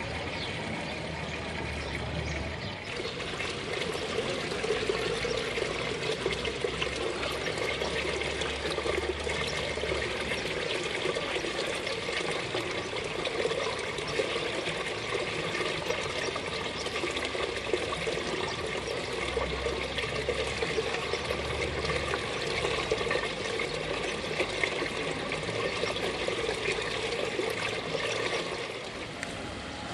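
Water pouring steadily from a stone spout into a stone fountain trough and splashing into the pool. It grows fuller about three seconds in.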